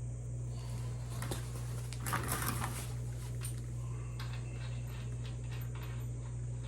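Hand tools working the motorcycle's front axle lock nut. There is a burst of metallic clatter about two seconds in, then a run of light ticks, over a steady low hum.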